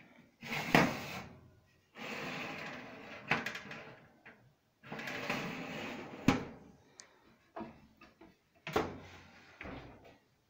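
Metal baking tray and oven rack scraping and clanking as the tray is pushed into the oven in several shoves, the loudest clank about a second in. Near the end a last clunk as the oven door is shut.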